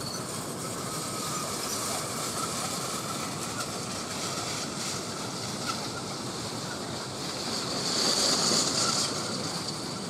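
Steady rolling rattle of a long playground roller slide's rollers as someone rides down it on a mat, growing louder about eight seconds in.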